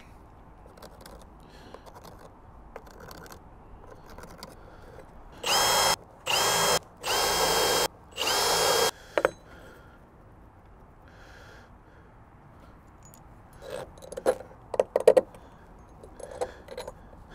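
Milwaukee cordless drill running in four short bursts into a wooden base, each burst spinning up with a quick rising whine and then holding steady. A few sharp knocks follow near the end as parts are handled on the truck bed.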